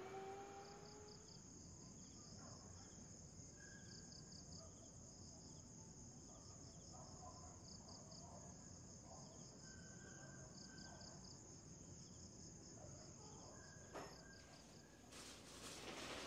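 Faint insect chorus of crickets: a continuous high trill with rhythmic pulsing chirps beneath it. A clatter of handling noise begins near the end.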